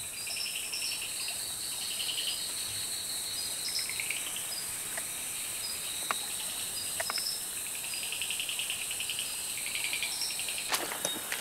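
Night-time rainforest chorus: a steady high-pitched insect drone under repeated short pulsed trills and brief higher chirps. A few faint clicks, and rustling near the end.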